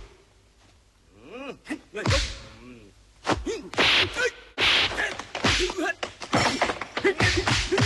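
Film fight sound effects: punch and kick impacts and swishes in a fast flurry, mixed with the fighters' short grunts and shouts. It is nearly quiet for about the first second, with a few grunts before the flurry of hits starts about three seconds in.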